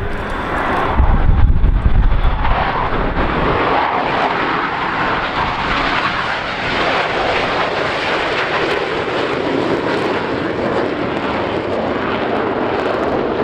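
Jet roar from four F/A-18 Hornet fighters flying past in formation, a loud, steady rush of engine noise. A deep rumble underneath it fades after the first couple of seconds.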